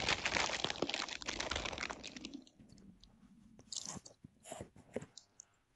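Chewing and crunching chili-lime Doritos Dynamite rolled tortilla chips: dense crunching for about the first two seconds, then a few separate crunches.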